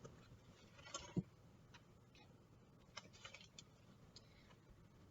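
Near silence with a few faint clicks and scrapes of kitchen utensils: a pair about a second in and a few light ticks around the three-second mark.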